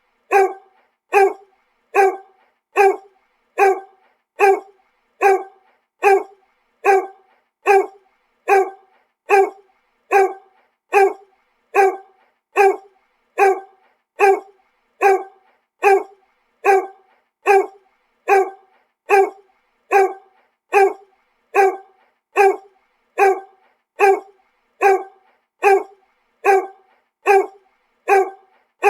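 A dog barking over and over: single short barks at a perfectly even pace of about one every 0.8 seconds, each bark alike, as in a looped bark sound effect.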